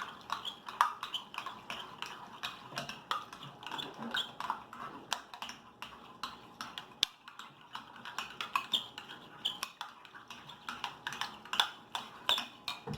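Slime being stirred in bowls: many quick, irregular clicks and taps of utensils against the bowls, with sticky scraping between them.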